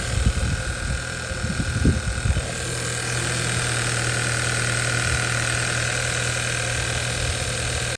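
Audi A4 B8's 1.8 TFSI four-cylinder engine idling steadily, free of the hitting sound it had before the repair. A few low bumps come in the first couple of seconds.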